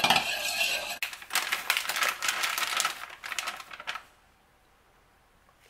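A wire whisk beating dry cake mix in a plastic mixing bowl: rapid clicking and scraping strokes against the bowl, with a brief pause about a second in, stopping about four seconds in.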